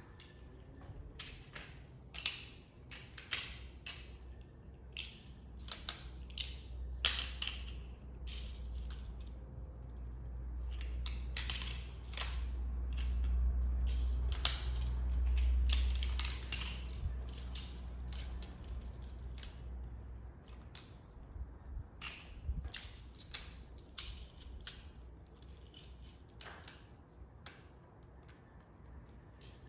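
Plastic magnetic building tiles clicking and clacking as they snap together and are handled, in irregular sharp clicks, busiest in the first half. A low rumble swells in the middle and fades again.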